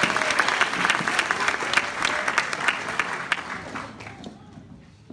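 An audience clapping in a hall, with a few voices mixed in. The applause dies away about four seconds in.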